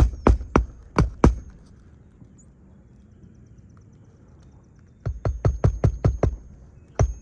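A hammer driving nails into roof shingles: quick runs of sharp strikes about four a second, one run at the start, then a pause, then two more runs from about five seconds in.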